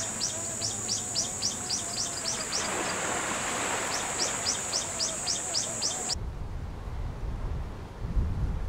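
Nature soundscape: a bird calling in quick runs of short falling chirps, about four a second, with a brief gap in the middle, over a steady high-pitched tone. A little past six seconds it cuts off and a low rumble takes over.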